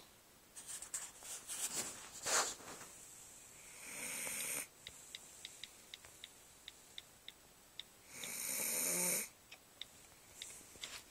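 Sleeping pet snoring, as loud as a person. Short noisy breaths come first, then two long snores about four seconds apart, with faint regular ticks in the gaps.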